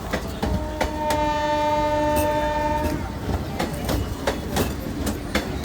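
Indian Railways WAP-4 electric locomotive horn sounding one long blast of several steady tones at once, starting about half a second in and stopping about three seconds in. Under it and after it, train wheels clack at a steady rhythm over the rail joints.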